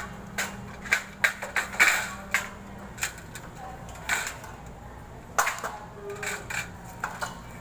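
Irregular sharp clicks and light metallic clatter of sheet-metal box-type fluorescent fixture housings and parts being handled and fitted together.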